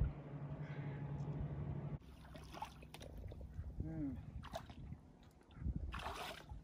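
A small boat's outboard motor humming steadily in the distance, stopping abruptly about two seconds in. Then faint clicks and handling sounds.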